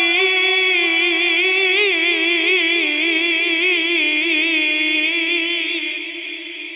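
A man's voice in melodic Quran recitation (tilawat), holding one long drawn-out note with a wavering, quavering ornament. It fades away near the end.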